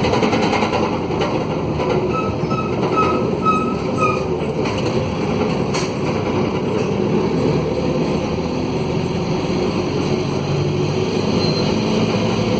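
Mercedes-Benz OM904LA four-cylinder turbo-diesel of a midibus running under way, heard from inside the bus, loud and raspy from a broken exhaust, with the Allison automatic gearbox and road noise underneath. A quick run of about five short high beeps about two seconds in.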